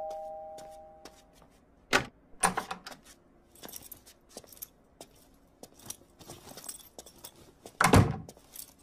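The tail of a two-note ding-dong doorbell chime dies away in the first second. Then come scattered clicks and metallic rattles of a door being unlatched and opened, with a sharp knock about two seconds in and a louder thump near the end.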